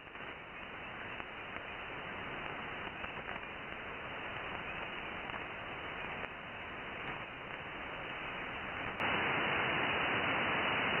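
Steady radio static hiss, cut off above the voice band. About nine seconds in it steps up louder and brighter.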